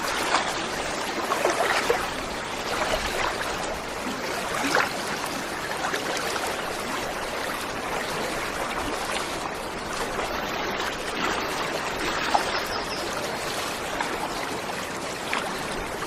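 Small waterfall's water falling and running in a steady rush, with small splashes standing out now and then.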